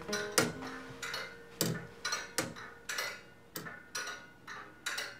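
Mechanical ticking of a homemade clock's escapement, built from bicycle gears: sharp clicks roughly once or twice a second, slightly uneven. A last piano-and-guitar note fades out at the start.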